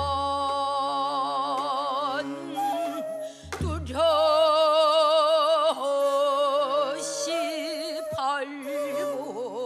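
A woman singing in pansori style, with long held notes that waver in a deep vibrato over a sustained accompanying instrument. Two low drum strokes fall at the start and about three and a half seconds in.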